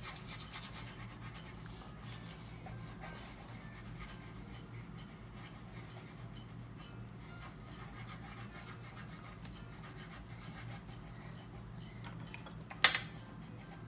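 Pencil and pen scratching and rubbing on paper as children draw, with one sharp knock near the end.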